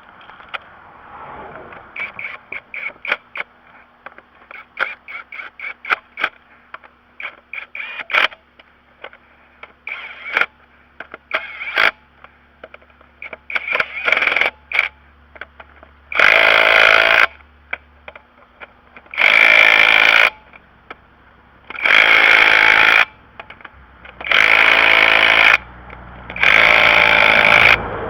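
A run of quick, irregular metallic clicks, then five loud bursts of an impact wrench, each about a second long, driving 19 mm lug nuts onto a wheel.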